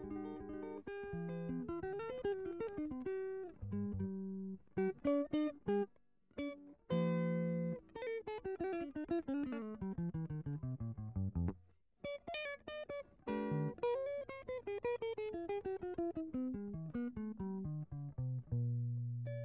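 Background music: solo plucked guitar playing quick runs of notes, twice sweeping down from high to low, with short breaks between phrases.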